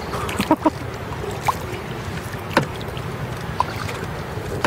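Kayak paddling: the paddle blades dip into the river with a handful of short splashes, drips and light knocks over a steady low rumble.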